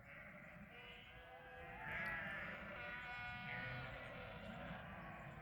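A flock of sheep bleating, several calls overlapping one another, the loudest a little under halfway through.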